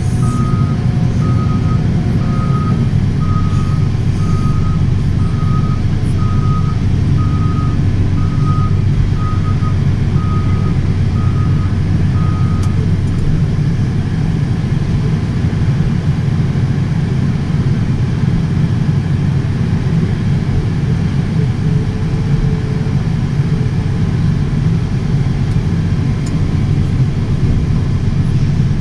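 JCB 435S wheel loader's diesel engine running steadily under load, heard from inside the cab. A reversing alarm beeps evenly, a little more than once a second, and stops about twelve seconds in.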